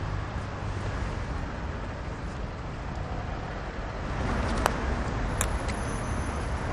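Steady city traffic noise, a low rumble of road traffic, with a few light clicks after the middle.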